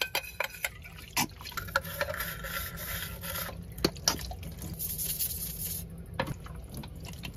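Dishes being washed by hand at a stainless steel sink: a scrubbing brush rubbing a small metal cup, water splashing, and a few sharp clinks of cup and knife against the sink's wire rack.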